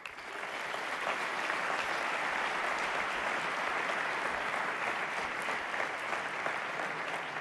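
Audience applauding steadily in a lecture hall, rising within the first second and holding at an even level until it cuts off suddenly at the end.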